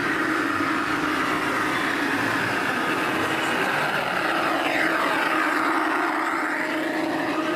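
Model train running along its track: a steady motor drone and wheel noise, with a whine that dips in pitch and rises again about five seconds in.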